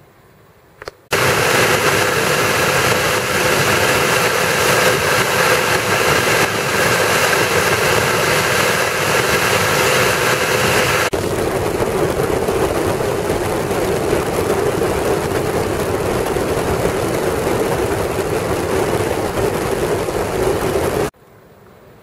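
Vacmaster Professional 9-gallon wet/dry shop vac's 12-amp motor running: a loud, steady rush of air with a steady whine. A brief click comes just before it starts, its tone changes abruptly about halfway through, and it cuts off suddenly near the end.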